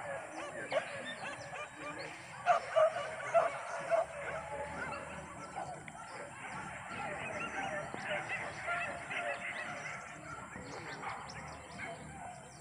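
A pack of hunting dogs barking and yelping in the distance, many calls overlapping, with a few louder yelps about three seconds in.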